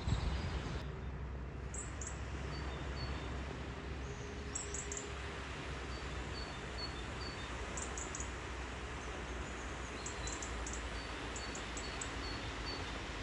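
Small birds chirping: short, high calls scattered through, over a steady low outdoor rumble.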